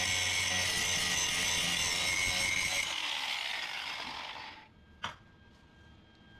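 Angle grinder grinding down a weld seam on sheet-steel firewall, running steadily, then let off about three seconds in and winding down over a second or so. A single sharp click follows near the end.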